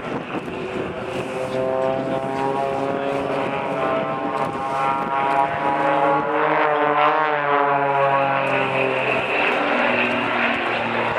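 Two XtremeAir Sbach 300 aerobatic aircraft flying together in formation, their piston engines and propellers droning. The two engine notes rise in pitch, cross and weave against each other around the middle, then fall away as the pair pulls through the manoeuvre.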